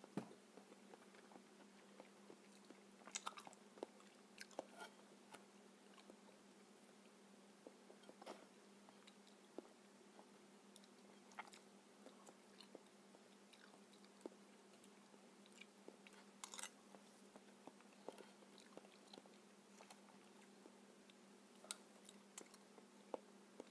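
Soft chewing and wet mouth sounds of eating spoonfuls of ripe papaya, with scattered small clicks and a few sharper ticks, over a faint steady hum.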